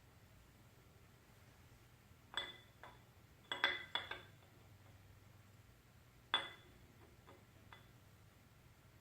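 Metal tools and steel engine parts clinking together, about eight sharp clinks with a brief ring, in small clusters around 2.5 s, 4 s and 6.5–7.5 s. This is handling while the camshaft is turned ready for the timing gear.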